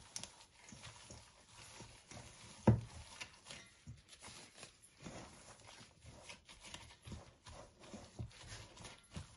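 Gloved hands kneading and squeezing a wet minced-chicken kebab mixture in a stainless steel bowl: irregular soft squelches and knocks, with one sharper thump against the bowl about three seconds in.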